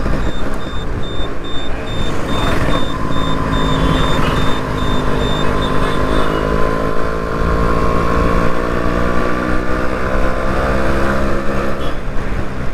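Yamaha RX two-stroke single-cylinder motorcycle engine running on the move, with wind noise on the microphone; its pitch climbs steadily in the second half as the bike picks up speed. For the first several seconds a thin high beeping repeats over it.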